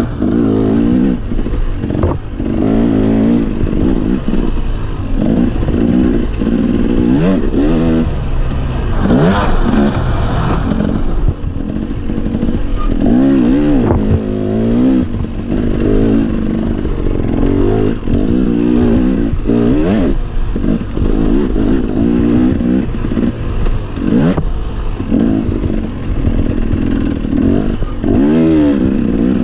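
Dirt bike engine revving hard and falling back again and again as it is ridden fast, its pitch climbing and dropping every second or two.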